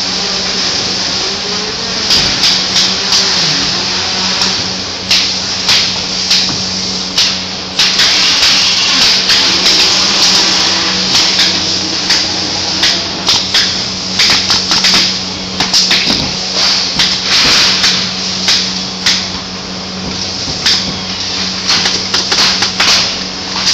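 Factory floor noise: a steady hum and a high hiss under many sharp, irregular shots from pneumatic staple guns fastening a travel trailer's roof membrane along its edges, at times several in quick succession.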